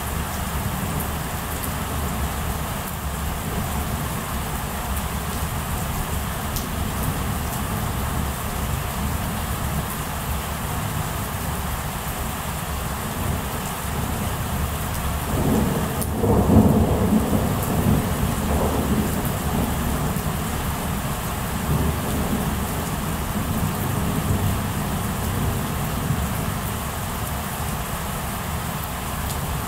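Steady rain during a thunderstorm, with a rumble of thunder about halfway through that swells for a second or two and then fades over a few seconds.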